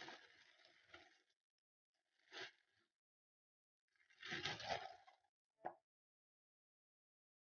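Thin plastic bread bag crinkling in three bursts as hands grip it and pull out slices of bread, the third the loudest, followed by one short tap.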